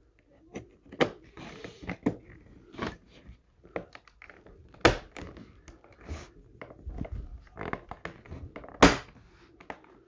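Plastic trim piece being pressed and clipped into a 2013 Mercedes-Benz C300 door panel: a run of clicks, taps and small knocks as its clips are worked into place, with two louder snaps about five and nine seconds in.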